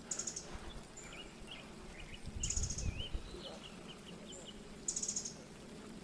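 Bewick's wren giving a run of short, quick chipping notes, an excited call. A very high, brief buzzy rattle comes twice, about halfway and near the end.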